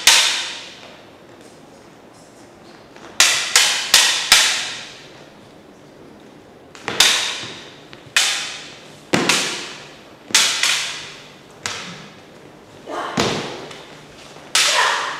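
Prop lightsaber blades clashing in a sparring duel: a string of about fourteen sharp clacks, some coming in quick runs of three or four. Each strike rings out with a short echoing tail.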